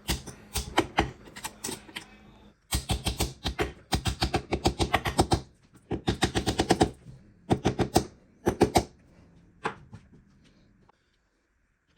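Rapid sharp clicking from hand-tool work on a KitchenAid Artisan stand mixer being reassembled. It comes in several runs of about eight to ten clicks a second, then stops about ten seconds in.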